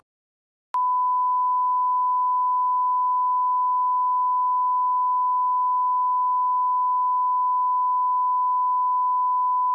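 A steady, unbroken beep tone at a single pitch, starting with a click just under a second in after a moment of silence: a censor bleep laid over the phone-call recording, most likely hiding a spoken phone number.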